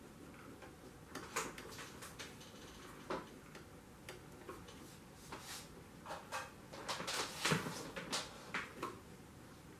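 Scattered light clicks, taps and fabric rustling as fabric is positioned under the presser foot and the sewing machine is handled and adjusted; the clicks come thicker in the last few seconds.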